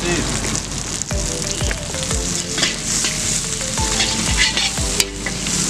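Bean sprouts sizzling and frying in a hot wok, stirred and tossed with a metal spatula that clicks and scrapes against the pan now and then.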